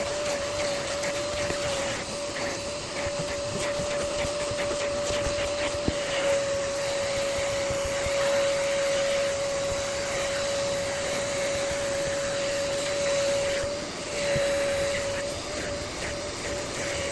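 Upholstery seat-washing machine's vacuum motor running with a steady whine and suction hiss, briefly dipping about fourteen seconds in.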